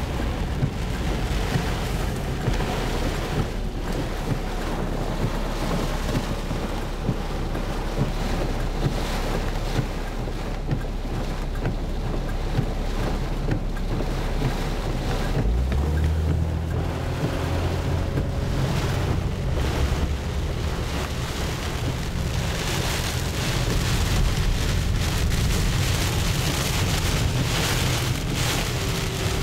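Heavy tropical-storm rain and gusting wind lashing a moving car, heard from inside the cabin, over a deep rumble of road and engine noise. The low rumble changes about halfway through.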